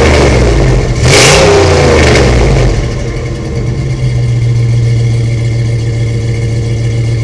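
Hemi V8 in a 2004 Jeep Wrangler LJ, running through a 2.5-inch exhaust with no catalytic converters, revved twice. A rev falls away at the start and a second rev comes about a second in, then the engine settles back to a steady idle.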